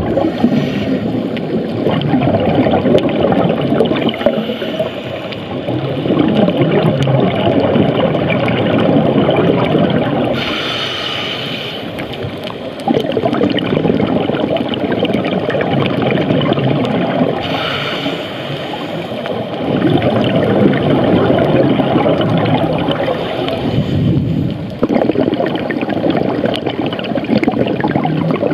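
Scuba diver breathing through a regulator, picked up underwater: long gurgling rushes of exhaled bubbles, broken three times by a short hissing inhale (about ten seconds in, about eighteen seconds in, and at the very end).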